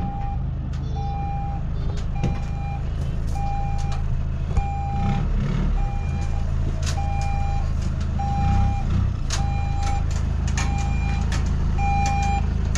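Zamyad pickup truck reversing slowly with its engine running low and steady. Its reversing alarm sounds a single-pitched beep about every second, roughly eleven times. Scattered sharp clicks are heard along with it.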